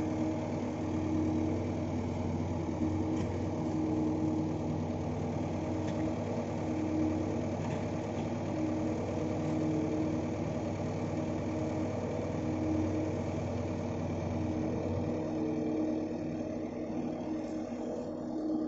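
Diesel engine of an Ajax Fiori self-loading concrete mixer running steadily, a low even hum that swells and eases slightly.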